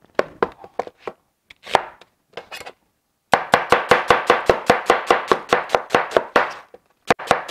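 Thin Chinese cleaver chopping an onion on a plastic cutting board: a few separate cuts, then from about three seconds in a fast steady run of knife strikes, about six a second, with a short pause near the end.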